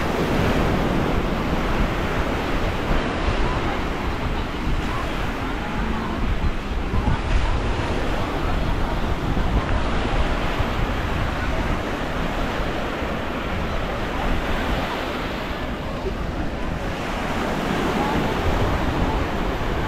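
Small waves washing onto a sandy beach, with wind buffeting the microphone in a steady low rumble.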